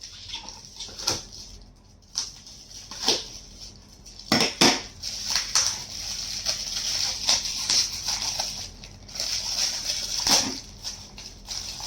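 A gift being unwrapped by hand: irregular crinkling, tearing and crackling of wrapping, with sharper snaps about four seconds in and again near the end.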